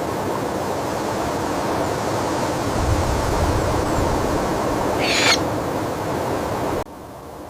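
A barn owl gives one short, harsh screech about five seconds in. Under it runs a steady rushing noise that cuts off abruptly near the end.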